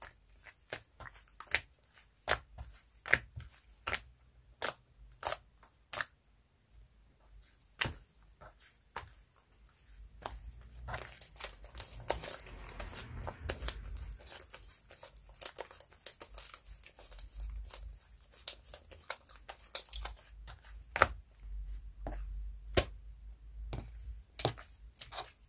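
Hands squeezing, folding and stretching sticky slime mixed with clay, making sharp sticky clicks and pops. About ten seconds in they turn into a denser run of crackling that comes and goes until near the end.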